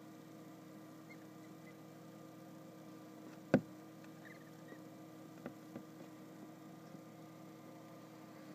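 Steady low hum in a gosling brooder box, with one sharp knock about three and a half seconds in and a couple of fainter taps soon after; a few faint soft peeps from the goslings.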